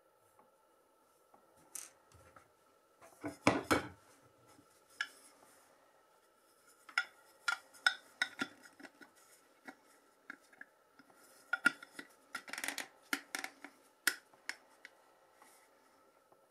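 Hard plastic figure parts handled and fitted together: scattered clicks, taps and short scrapes as the figure's foot pegs are worked into its plastic display base, coming in a few bunches with pauses between.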